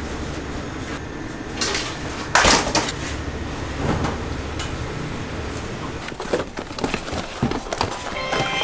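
Kitchen clatter: scattered knocks and clanks of utensils and containers, the loudest about two and a half seconds in and a run of small clicks near the end, over a low steady hum that fades about halfway.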